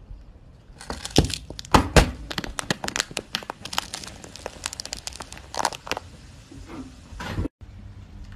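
Aluminium beer can being crushed under a car tyre: a long run of sharp cracks and crunching metal, loudest about a second and two seconds in. It stops abruptly near the end.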